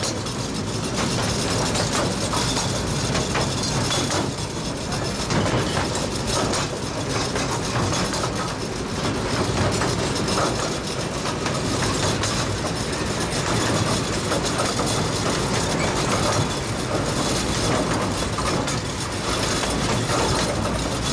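Rolling noise of a 15-inch-gauge miniature train's passenger cars on the rails, heard from aboard: a steady rumble and rattle with occasional light clicks.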